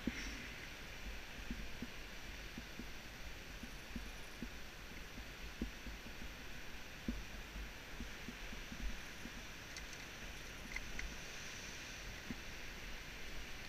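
Wind rumbling on a helmet-mounted camera's microphone over a steady hiss, with scattered soft knocks and taps as rope and climbing gear are handled at a rope anchor.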